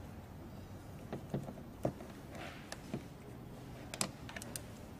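A screwdriver turning a screw out of the plastic door-handle recess on a car's interior door trim: several sharp small clicks with a short light scrape partway through.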